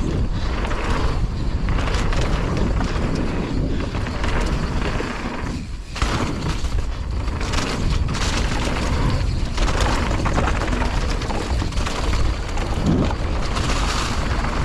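Strong wind buffeting the helmet-mounted action camera's microphone, a constant heavy rumble, mixed with the mountain bike rattling and knocking over the bumps and jumps of the trail. The din drops briefly about six seconds in.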